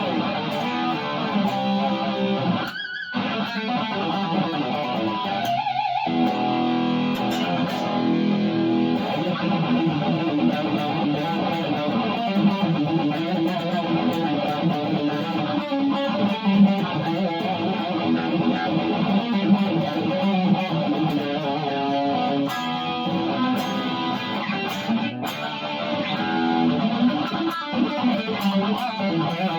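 Fender Thinline electric guitar with an ash body played through a distorted tone, strummed rhythm chords and riffs, with two short stops about three and six seconds in.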